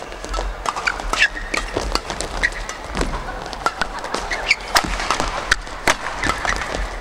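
Fast badminton doubles rally: rackets hitting the shuttlecock in quick, irregular exchanges, with short sneaker squeaks on the court floor between the hits.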